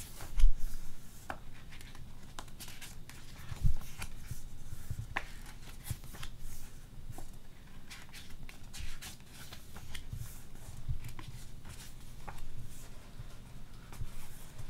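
Pages of an album photobook being turned by hand, soft paper rustles and small clicks, with a couple of louder bumps about half a second in and near four seconds.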